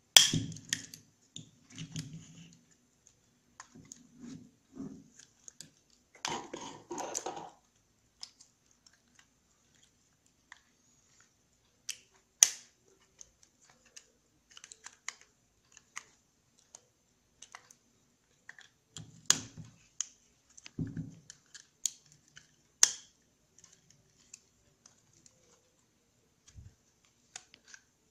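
Flat-blade screwdriver prying and scraping at a motorcycle fuel pump's crimped metal rim and plastic housing: scattered scrapes and clicks, with a few sharp snapping clicks, the loudest about halfway through.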